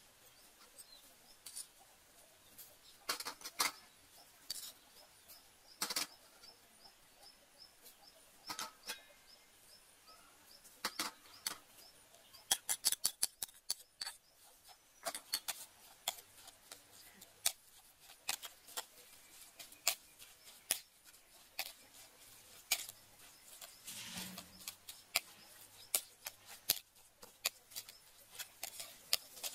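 Metal spoon clinking and scraping against a plate in scattered sharp clicks, with a quick run of taps about halfway through, as seasonings are added and a minced meat mixture is stirred.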